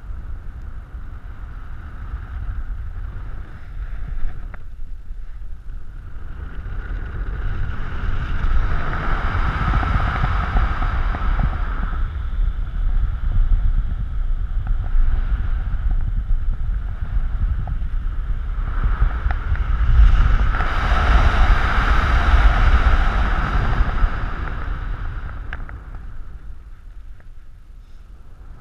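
Wind rushing over a helmet-mounted camera's microphone as a paraglider spins through a SAT, the acro manoeuvre in which pilot and wing rotate around each other. The rush swells about a third of the way in and again past two-thirds as the rotation speeds up, then eases near the end.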